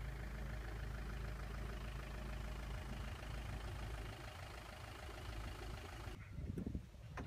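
Flatbed recovery truck's engine idling steadily with a low, even hum. It cuts off abruptly about six seconds in, leaving a few faint knocks.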